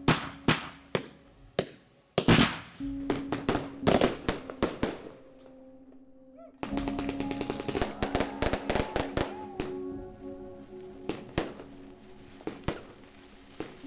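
Fireworks going off: rapid clusters of sharp bangs and crackles over soft background music with held notes.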